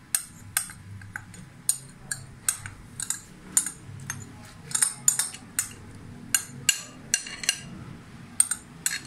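Glass bowl clinking and tapping against the rim of a saucepan in sharp, irregular clicks, roughly two a second, as ground soaked rice is tipped out of it into boiling milk. A faint low steady hum runs underneath.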